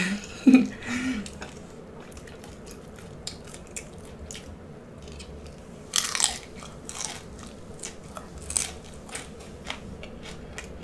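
Close-up crunching and chewing of a deep-fried salt and pepper shrimp head stuffed with garlic: irregular crisp cracks of the fried shell, with one sharp, loud crunch about six seconds in. A short burst of voice comes at the very start.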